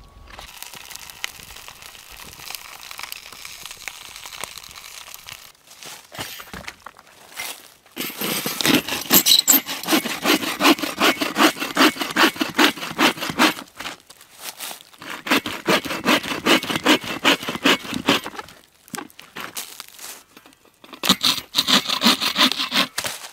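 Hand saw cutting through an old weathered wooden board. It comes in three runs of quick back-and-forth strokes with short pauses between them; the first run is the longest.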